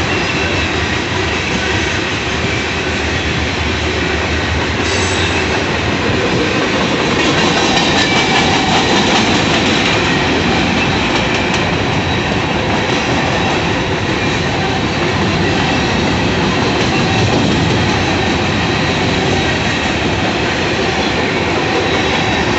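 CSX freight train's tank cars and covered hoppers rolling past close by: a steady, loud rumble of steel wheels on rail, with a continuous clatter.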